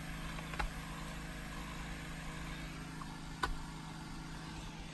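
A steady low mechanical hum, with two small clicks about half a second and three and a half seconds in.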